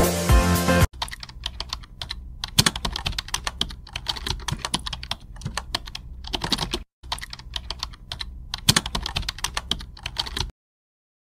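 Electronic music cuts off about a second in, followed by a computer keyboard typing sound effect: rapid, irregular key clicks in runs with short pauses, stopping near the end.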